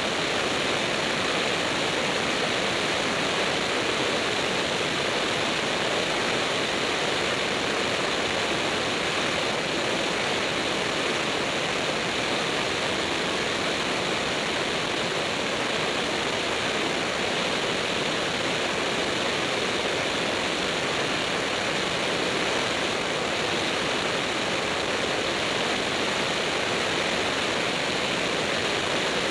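Steady rush of wind and engine noise from a light propeller airplane in flight, an even hiss-like din with no distinct engine tone and no change in level.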